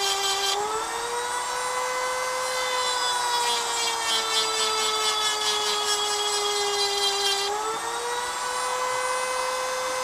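Dremel rotary tool running with a steady high whine, its bit grinding the steel of a Swiss Army knife blade into a rock pattern. A harsh grinding rasp comes and goes over the whine, and the motor's pitch sags slowly through the middle and rises again near the end.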